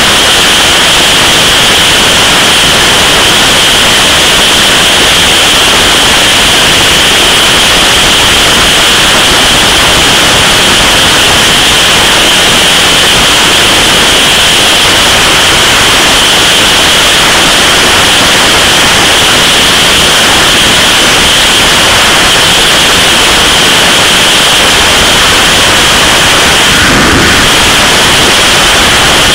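Loud, steady wind rush over the microphone of a camera mounted on a motorcycle at motorway speed, a hiss with no engine note standing out.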